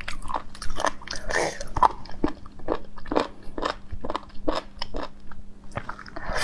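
A person chewing and biting slices of ready-to-eat sea cucumber: a run of crisp crunches, about two or three a second.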